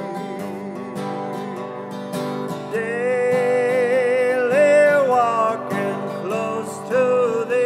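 Music: an acoustic guitar plays steady plucked accompaniment, and a sung melody line with a wavering, held pitch comes in about three seconds in.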